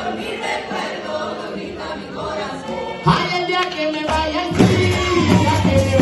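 A group of voices singing a traditional tambora song together, with drums coming in strongly about halfway through and a steady beat carrying on under the singing.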